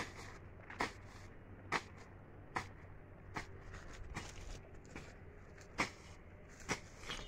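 Weeds and grass being cleared from a plot by hand: sharp, brief ripping or cutting strokes at a fairly even pace of about one a second.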